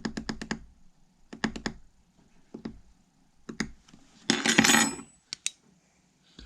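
A metal key scraped hard across a smartphone's camera glass in a scratch test. It begins with a fast run of short scratchy strokes, followed by a few single strokes and then one longer, louder scrape a little past halfway.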